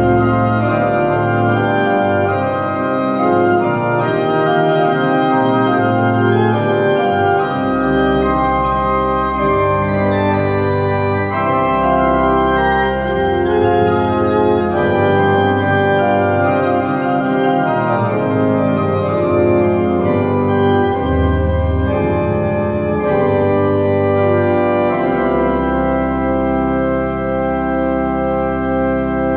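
Small pipe organ (positive) playing, registered with bourdon, montre, doublette and nazard: several moving voices over held bass notes, settling into a long held chord near the end.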